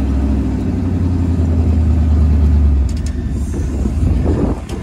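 Engine of a four-wheel-drive off-road vehicle running steadily at low speed, heard from inside the cab; a little under three seconds in its low hum drops as it eases off. A few short knocks sound from the vehicle near three seconds in and again near the end.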